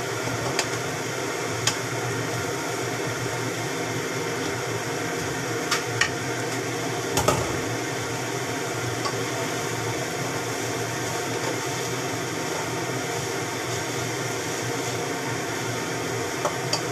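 Vegetables sizzling in a hot wok as they are stir-fried, a steady hiss, with a few sharp knocks and scrapes of a wooden spatula against the pan.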